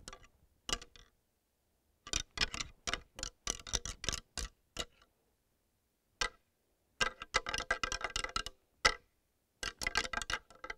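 Pair of deer antlers rattled together: quick runs of sharp clacking, tine on tine, in three main bursts with single clacks and pauses between. The rattling imitates two bucks sparring, to call in a whitetail buck.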